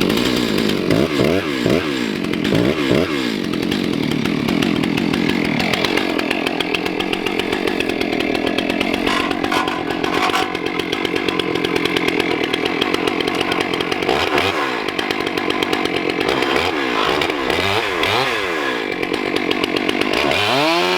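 Stihl MS 661 chainsaw with a 42-inch bar and ripping chain running loud. It revs up and down several times at the start, holds a steady high speed through the middle, then rises and falls in revs again near the end.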